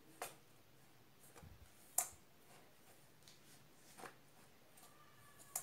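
Spoon stirring dry gram flour mix in a stainless steel bowl: faint scraping with four sharp clinks of the spoon against the bowl, about every two seconds.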